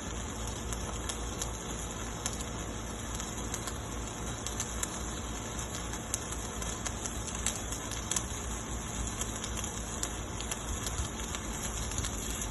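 Electric welding arc crackling steadily, with a continuous frying hiss and frequent irregular sharp pops.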